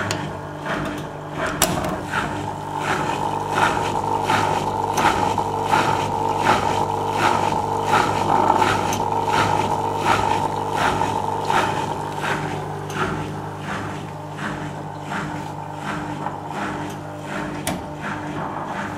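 Original 1992 Askoll magnetic drain pump of a Zanussi Super Jetsystem washing machine running: a steady hum that is slightly noisy, as is usual for a pump of that age, with a regular swishing pulse about every 0.7 seconds. A sharp click about one and a half seconds in.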